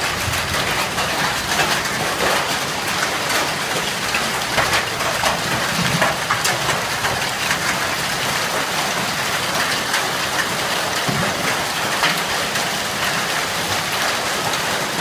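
Hailstorm with heavy rain: a dense, steady hiss of rain and hail falling on a swimming pool and the yard, with many sharp ticks of hailstones striking throughout.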